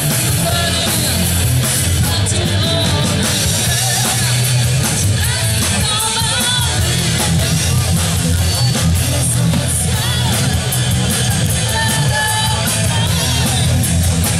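Live rock band playing: electric guitars, bass and drums with steady cymbal strokes, and a singer's voice, partly shouted, over the top. The sound is heard from within the crowd.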